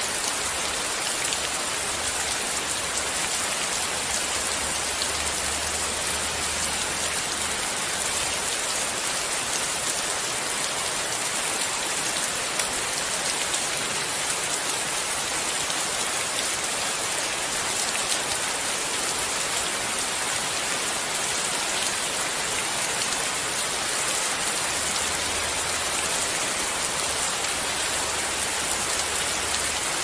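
Steady rainfall: a dense, even hiss of countless drops that keeps on without a break or change.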